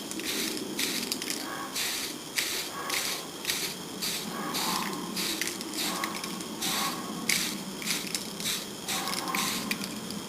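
Aerosol spray can of primer in use: a run of short, irregular hissing and rattling bursts, about two or three a second.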